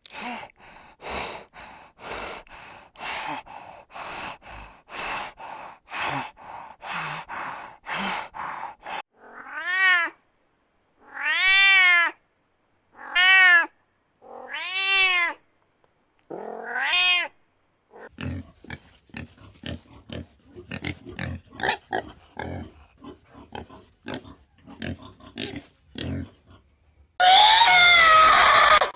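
A cat meowing five times in the middle, each call rising and then falling in pitch. Before the meows comes a run of about a dozen short, evenly spaced animal sounds, after them a patter of short clicks, and near the end a loud scream-like cry.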